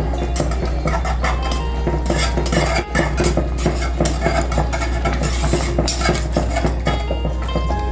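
A wire whisk scraping and clinking against a steel pan, stirring a thick, wet semolina-and-milk mixture in a fast run of small clicks.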